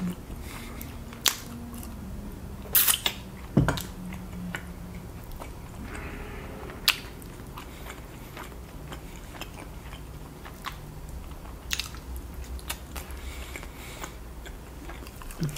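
Close-miked chewing of sauce-covered rotisserie chicken, with scattered sharp, wet mouth clicks and smacks.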